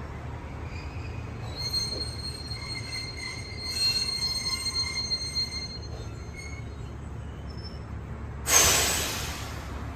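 Train wheels squealing on the rails, several high tones at once over a steady low rumble of the running train, fading out about six seconds in. Near the end a sudden loud hiss that dies away over about a second.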